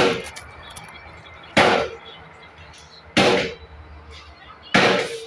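Concrete pump working through its stroke cycle: a loud hissing chunk about every 1.6 seconds as the pistons change over, four in a row, each fading quickly with a brief ringing tone.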